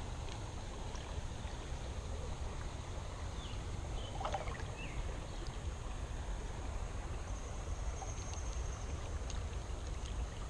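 Creek water running steadily, with a brief bird call about four seconds in.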